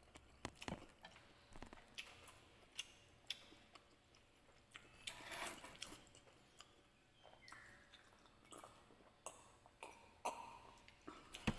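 Faint eating sounds: chewing, with scattered small clicks and taps from wooden chopsticks against a clay pot, and a sip of water near the end.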